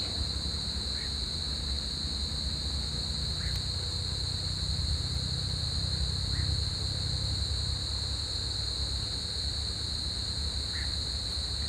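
Night chorus of crickets: a continuous, steady high-pitched trill, over a low steady rumble.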